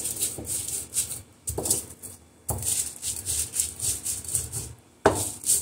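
Stone muller (batta) rubbed back and forth on a flat sil grinding stone, crushing whole dry spices: cumin, coriander seed, red chillies and rock salt. The gritty scraping comes in quick repeated strokes with short pauses.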